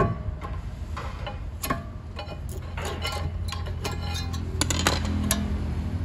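Scattered light metallic clicks and clinks as brake pads and tools are handled, over a steady low hum.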